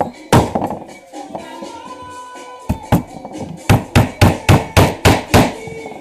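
Hammer nailing together a wooden beehive frame. There is a single blow, two more a little before the middle, then a quick run of about seven blows at roughly three a second.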